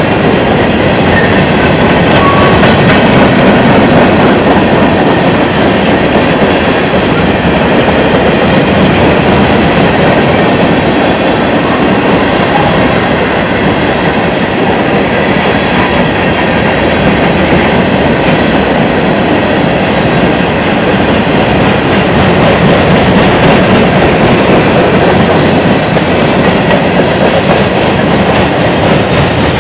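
Freight train cars (covered hoppers, then coil and tank cars) rolling past close by: a loud, steady rumble and clatter of steel wheels on the rails.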